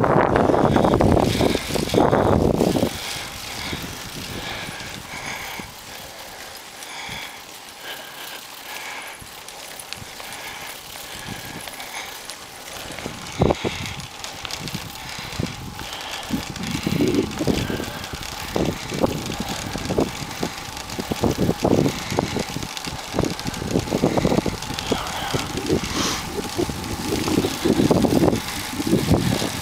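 Wind buffeting the microphone of a camera carried on a moving road bicycle, over a steady hiss of tyres on the road. The rumble is strong for the first few seconds, eases off, then comes back in irregular gusts in the second half.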